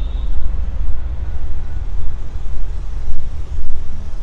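Loud, uneven low rumble of outdoor background noise, with a faint hiss above it.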